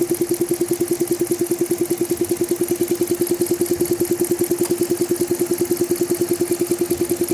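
Jeep Grand Cherokee engine bay with a rapid, steady clicking, about nine clicks a second, which the owner puts down to a leaking purge hose.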